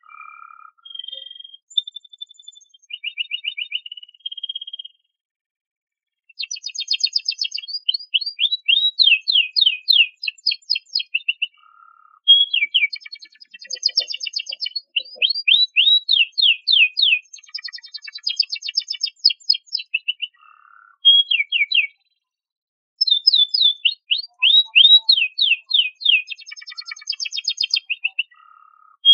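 Domestic canary singing: a few soft separate notes, then after a short pause long phrases of fast, repeated trilled notes and chirps, broken by brief gaps.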